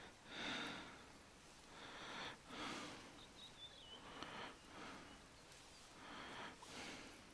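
A person breathing and sniffing close to the microphone, soft breaths about once a second.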